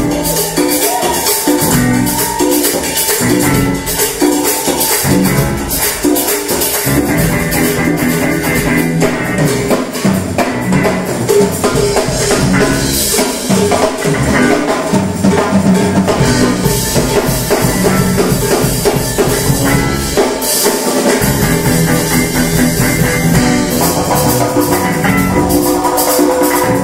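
Live pop-funk band playing: electric guitar, bass, drum kit, congas and a shaker.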